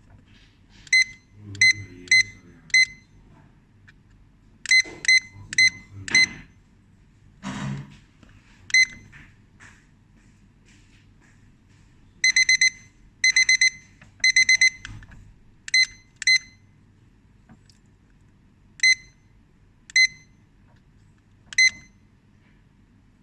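Digital kitchen timer beeping: a series of short single high beeps, with three quick bursts of rapid beeping about halfway through. A couple of soft knocks come early on.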